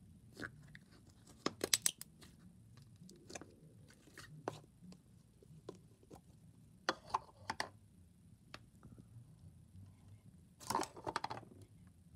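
Thick butter slime worked by fingers in a plastic cup, then pulled out and pressed by hand, giving scattered short sticky clicks and crackles in small clusters, the loudest near the end.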